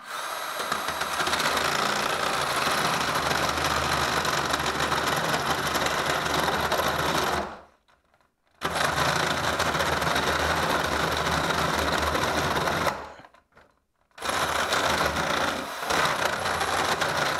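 Ryobi right-angle drill running a flat bit through a timber joist in three bursts, pausing briefly about seven and a half and thirteen seconds in. The bit is enlarging an undersized pipe hole, kept centred by a wooden plug fitted snugly in the old hole and spiked on the bit's point.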